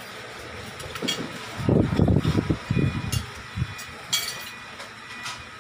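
Eating sounds at a table: a few sharp clinks of cutlery on plates and glasses, with low rumbling thumps bunched around the middle.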